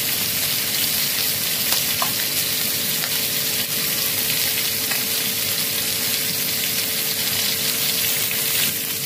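Chicken wings sizzling as they fry in oil in a wok, a steady hiss with a steady hum underneath.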